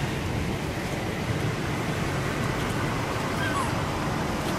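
Steady rushing outdoor background noise, with a faint brief high chirp about three and a half seconds in.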